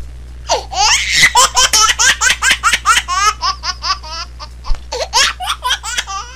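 High-pitched laughter, a fast run of short pitched bursts of about five or six a second, starting about half a second in.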